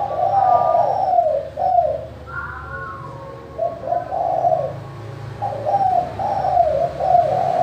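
Spotted dove (tekukur) cooing in a clear voice: three phrases of low, arching coos, one at the start, one about four seconds in, and one from about five and a half seconds on.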